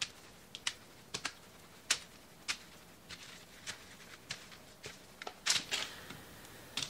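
Light, irregular taps of cookie dough balls being set down by hand on a parchment-lined metal sheet pan, about one or two a second, with a longer rustle of the parchment about two-thirds of the way in.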